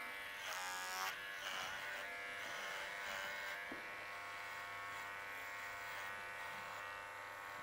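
Electric horse clippers buzzing steadily as they clip the hair on a pony's face.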